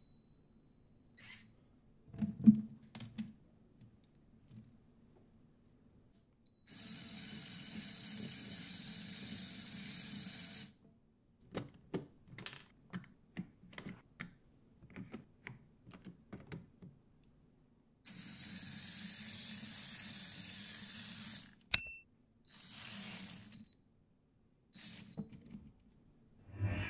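Small Lego electric motor whirring in steady runs of a few seconds, two long ones and a shorter one, with quick plastic clicks and rattles of Lego Technic gears and parts being handled in between, and a few louder knocks.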